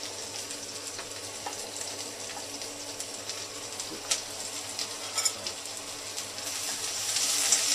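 Sliced onion frying in a wok, a steady sizzle with scattered pops and crackles. The sizzle grows louder near the end.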